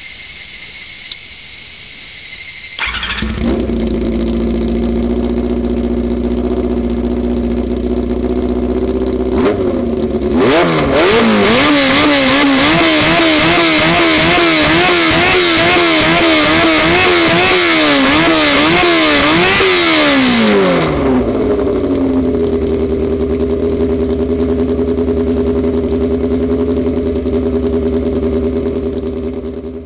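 Honda CB400 Super Four NC31's inline-four engine turned over by the starter for about three seconds, catching and settling into a steady idle. About ten seconds in it is revved in quick repeated blips for around ten seconds, then drops back to idle before the sound cuts off.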